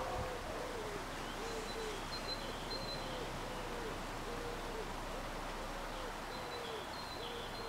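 A bird's low, hoot-like cooing note repeated about twice a second, each note rising and falling slightly in pitch, with short high chirps of other birds above it.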